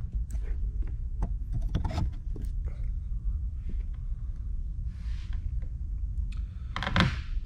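Handling noise: scattered light clicks and taps, a brief rustle about five seconds in, and a louder knock near the end, over a low steady rumble.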